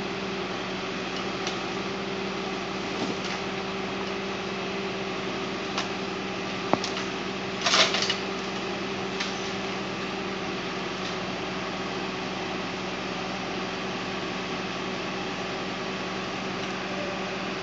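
Valtra Valmet 6800 tractor's diesel engine running steadily while it powers a hydraulic log-loader crane, with scattered knocks of logs and a louder clatter about eight seconds in.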